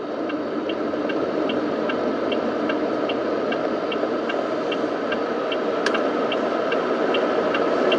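Wuling Alvez turn-signal indicator ticking evenly, about two and a half ticks a second, over the steady hum of the car's cabin while driving slowly. One sharper click about six seconds in.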